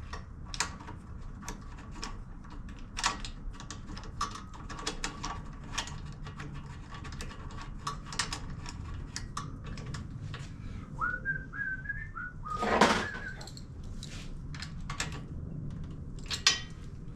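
Scattered sharp clicks and light metal taps of hand tools as a spark plug is screwed back into a small engine. About 11 seconds in there is a short whistle stepping upward over a few notes, then a brief loud rushing burst.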